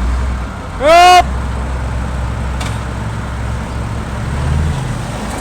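Heavy-equipment engine running steadily with a low rumble that eases slightly near the end. About a second in comes a short, loud call that rises and falls in pitch, like a shouted signal.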